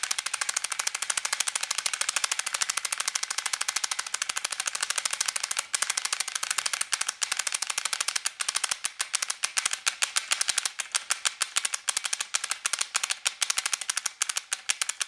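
Firing solenoid of an electronic marker clicking in a rapid, continuous stream, with short hitches about six and eight and a half seconds in. The stuttering cycling is the misfire, which the owner suspects comes from a faulting trigger micro switch but is not sure.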